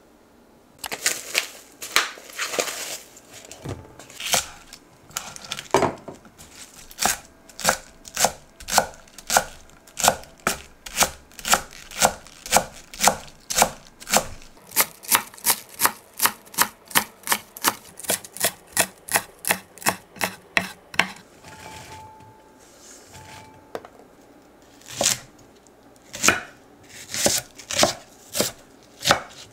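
Kitchen knife chopping garlic chives on a wooden cutting board in quick, even strokes, about two or three a second. After a short pause, a few more cuts through a Japanese long leek come near the end.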